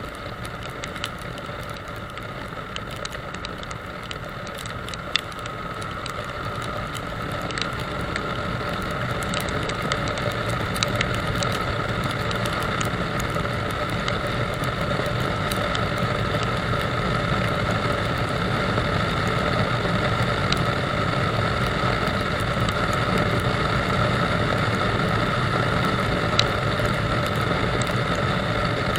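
Motorcycle riding along a wet road: steady engine tone under wind and road noise, growing louder from about six to twelve seconds in as the bike picks up speed, with a few sharp ticks.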